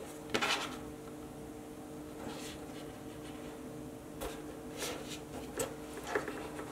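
Paracord rustling and scraping in short strokes as a metal lacing needle draws it through a braided collar, the loudest scrape about half a second in. A faint steady hum runs underneath.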